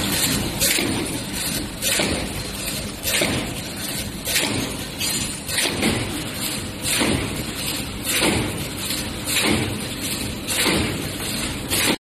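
Square paper cup forming machine running, a steady mechanical clatter with a regular thump about every 1.2 seconds, one per forming stroke.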